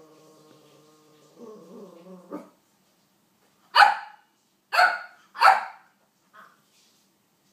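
Ruby King Charles spaniel barking: three loud, sharp barks in quick succession about four seconds in, then one faint short bark. Before them, a drawn-out pitched sound fades out.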